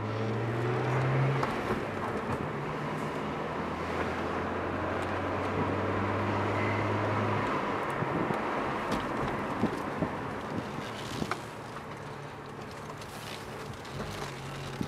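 BMW 1M's twin-turbo inline-six running while driving, heard from inside the cabin with road noise. Its low steady note drops away about seven and a half seconds in, around a change on the six-speed manual gear lever, and a few light clicks follow.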